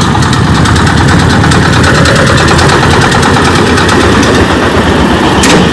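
A motor vehicle engine running steadily close by, with a fast, even pulse.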